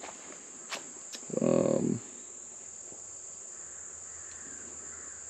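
Steady high-pitched drone of a chorus of insects. About a second and a half in, a man's voice gives one brief hum.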